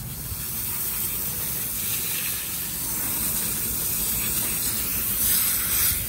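Hose spray nozzle spraying a steady jet of water onto a rooftop air-conditioner condenser coil, a continuous hiss, rinsing off coil cleaner and dirt. A low steady rumble runs underneath.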